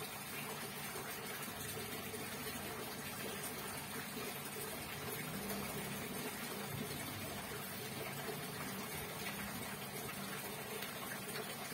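Liquid soap mixture pouring from a plastic bag into a plastic bucket and sloshing as the bag is worked in it: a steady, even splashing.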